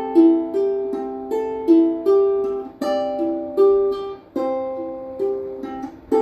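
Gentle instrumental music: a stepping melody over chords struck about every second and a half, with a plucked-string sound.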